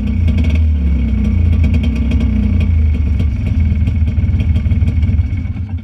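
Honda FL400 Pilot off-road buggy engine running steadily at idle, heard close up from the driver's seat.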